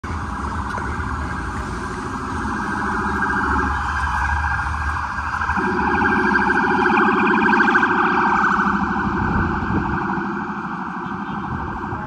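Ambulance siren sounding with a fast pulsing warble. It grows louder toward the middle and then fades slightly.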